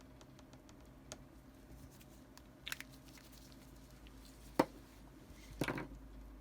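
A few separate sharp plastic clicks, the loudest about two-thirds of the way in, then a brief crunchy rattle near the end, as mechanical keyboard switches are handled.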